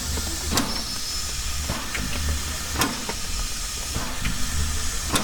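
Class L steam locomotive standing at idle: a steady hiss of steam over a low, pulsing rumble, with sharp clicks about once a second.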